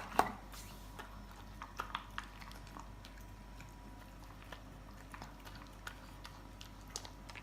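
Shih tzus eating meatballs and chicken: faint chewing with scattered small clicks, the sharpest just after the start.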